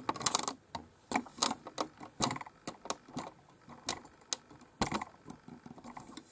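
A run of irregular light clicks and taps of a brush against a palette while watercolour paint is being mixed and picked up.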